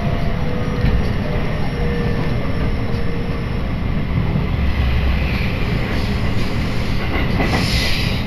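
JR Shikoku Marine Liner rapid electric train running, heard from inside the carriage: a steady rumble of wheels on rails, with a faint thin whine that fades out about three and a half seconds in.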